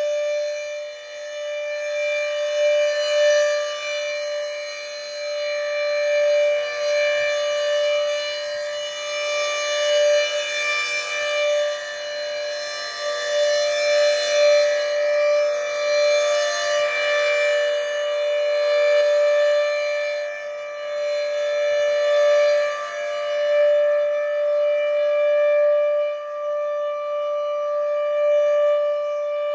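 Federal Signal Thunderbeam RSH-10B tornado siren sounding a steady tone during a test. Its loudness swells and fades about every three to four seconds as the rotating head sweeps past.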